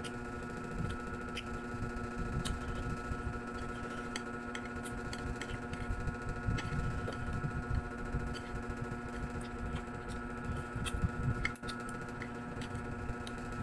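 Eating sounds: chewing of noodles, with scattered light clicks of chopsticks against a ceramic plate, over a steady electrical hum.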